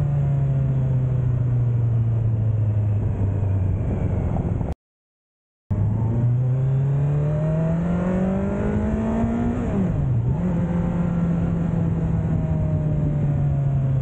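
The stock exhaust of a Kawasaki Z900's inline-four engine, ridden at low speed. The engine note falls as the bike rolls off the throttle, then climbs steadily under acceleration. Near the middle it dips sharply as the bike shifts up a gear, then settles lower and slowly eases off. The sound cuts out completely for about a second near the start.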